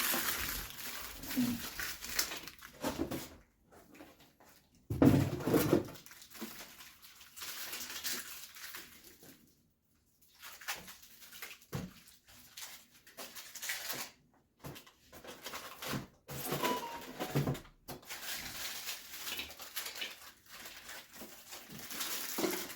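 Packaging being handled while unboxing an electric grill: plastic wrapping crinkling and rustling in irregular bursts, with scattered knocks and bumps, the loudest about five seconds in.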